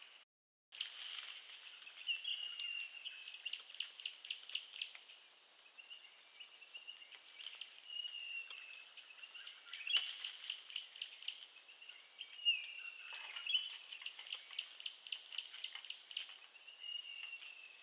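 Tropical forest ambience: a high, rapidly pulsing insect chorus with short whistled bird calls over it, and a sharp snap about ten seconds in.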